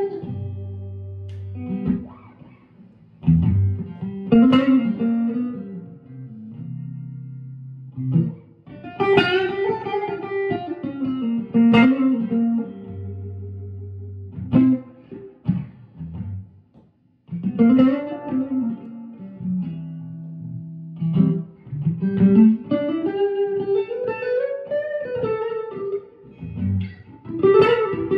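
Clean electric guitar played through a 1964 Fender Vibroverb and a Longhorn Amps Tumbleweed Special: bluesy phrases of single notes and chords, with held low notes, string bends and short pauses between phrases.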